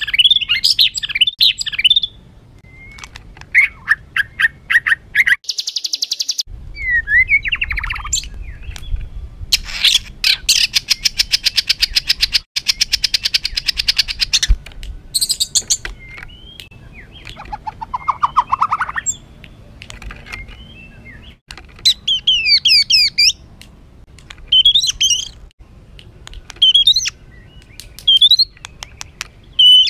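White-rumped shama (murai batu) singing a harsh, agitated song: varied whistled phrases and chatter, with a long rapid rattling trill about ten seconds in.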